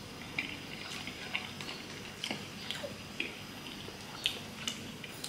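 A man chewing a mouthful of loaded fries and chicken: soft, short mouth clicks and smacks, about two a second.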